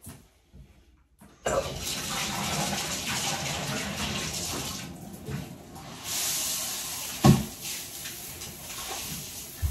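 Water running from a handheld shower head into a bathtub, starting about a second and a half in and running steadily, easing briefly midway. A single short thump a little after seven seconds.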